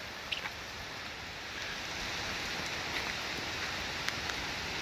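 Heavy hurricane rain pouring steadily, a dense hiss of rain on surfaces with scattered sharper drop ticks, growing a little louder about two seconds in.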